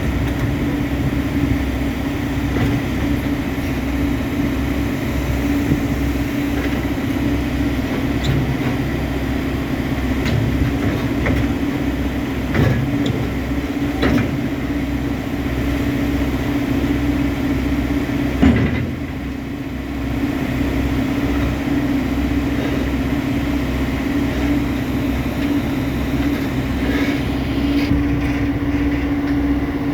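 Heavy-equipment diesel engine running steadily, with a few sharp knocks partway through; the loudest knock comes about two-thirds of the way in.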